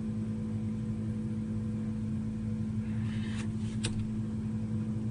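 Steady low electrical hum with a light hiss, with two faint clicks about three and a half seconds in.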